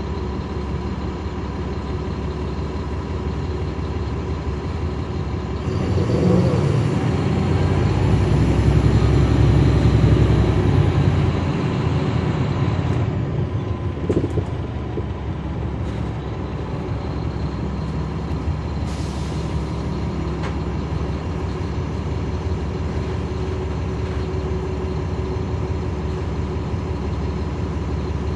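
Caterpillar C13 diesel engine of a NABI 40-foot transit bus, heard from the rear of the cabin, running steadily, then louder for about six seconds under acceleration with a faint high whine that rises and falls, before dropping back to steady running. A brief air hiss comes about two-thirds of the way through.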